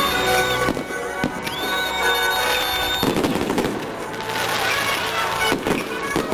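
Fireworks display, with several sharp bangs of shells bursting, heard over music with held notes.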